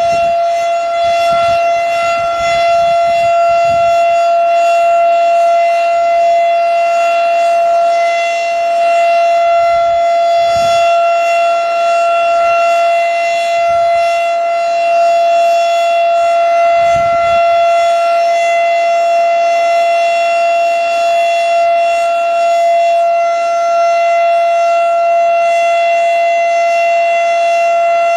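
Federal Signal STH-10A outdoor warning siren sounding a full alert: one loud, steady tone held without rising or falling. Wind buffets the microphone now and then, with low rumbles in the first few seconds, around the middle and again a little later.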